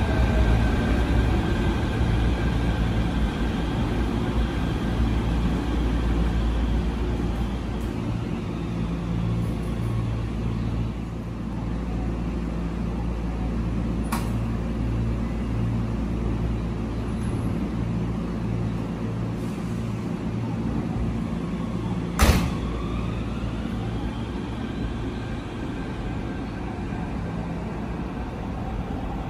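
Shin-Keisei Line electric commuter train: its motor whine falls away as it comes to a stop, then a steady low hum while it stands at the platform. A single sharp bang comes about two-thirds through, and a rising whine follows as a train gets under way.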